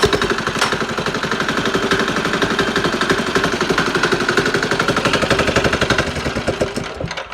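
Chinese 168F single-cylinder diesel engine, pull-started using the decompression lever, firing at once and running with a rapid, loud diesel clatter, then winding down near the end.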